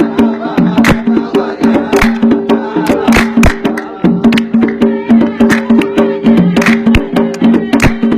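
Instrumental passage of a traditional Arabic dan folk song: quick, dense hand-drum strokes over a steadily held melody tone.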